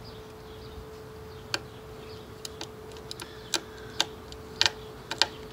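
Irregular small sharp clicks and ticks of a small screwdriver and fingers working the wire terminal screws on a white plastic Ring spotlight camera housing, starting about a second and a half in, with a faint steady hum underneath.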